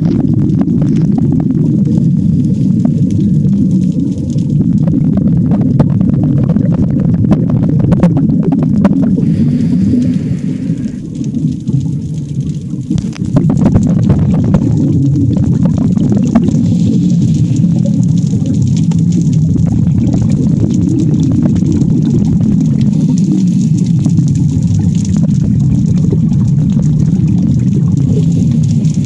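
Underwater sound picked up through a camera's waterproof housing: a loud, steady, muffled low rumble of water moving against the housing, with scattered faint clicks. It drops quieter for a couple of seconds about eleven seconds in.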